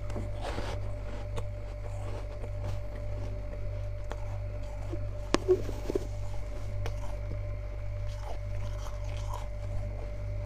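Sparse small clicks and crunches of freezer frost, with a short louder pair of crunches about five and a half seconds in, over a steady low hum.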